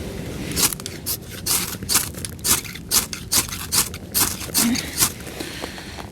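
A ferro rod struck over and over, about eleven quick scrapes at roughly two a second, to throw sparks onto wet tinder. The scraping stops about five seconds in.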